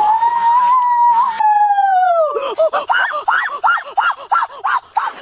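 A domestic goose, caught and held, lets out one long drawn-out call that falls in pitch and breaks off about two seconds in, then honks rapidly, about four honks a second.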